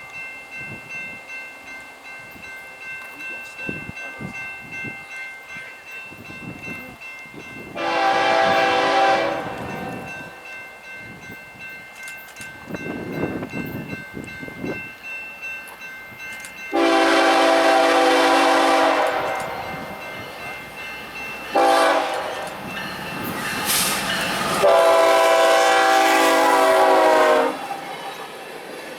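A BNSF locomotive's multi-tone air horn blowing the grade-crossing signal: two long blasts, a short one, then a final long one, over the rumble of the passing geometry train.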